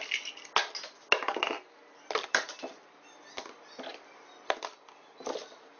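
Felt-tip pens and a plastic card being dropped and set down on a desktop: a quick, uneven series of sharp clicks and knocks, sped up by a fast-forward effect.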